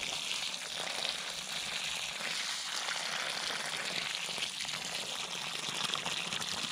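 Water pouring steadily from a hose outlet onto soil and splashing into a spreading puddle: an even, steady hiss.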